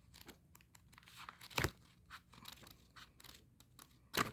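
Paper and plastic craft items being handled: scattered soft rustles and crinkles, with two louder sharp taps, one about a second and a half in and one near the end.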